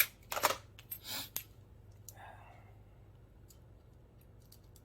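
A few light clicks and knocks of small hardware being handled, a metal mounting bracket and screws for a grow-light fixture, mostly in the first second and a half, then only faint scattered ticks.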